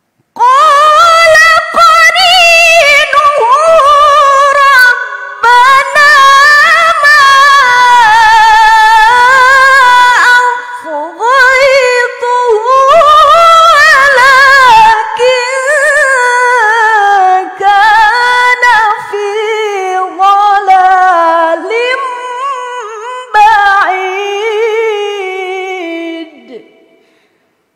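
A woman reciting the Quran in the melodic tilawah (mujawwad) style: one long phrase sung with rapid ornamented turns, sinking lower in pitch and fading out near the end.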